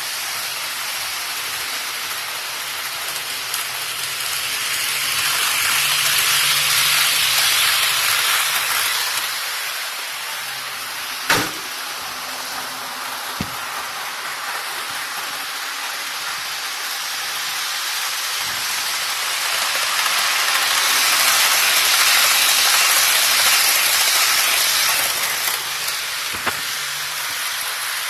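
Model train running on the layout track: a steady rushing of wheels and motor that swells twice as the train passes close, with a sharp click near the middle.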